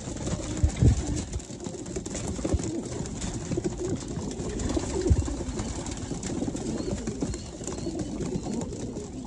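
Flock of racing pigeons cooing, with a few soft thumps about a second in and again around five seconds in.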